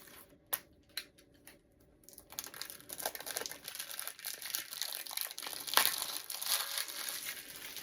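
A few sharp clicks, then from about two seconds in, plastic wrapping crinkling and tearing steadily as it is pulled off.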